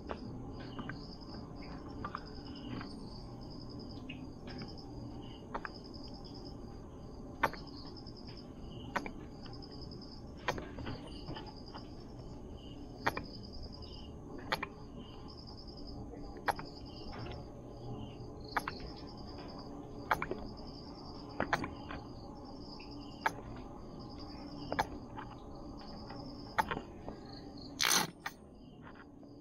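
Insects chirping in a steady pulsed pattern over a low background hum, with scattered sharp ticks throughout and a brief clatter near the end.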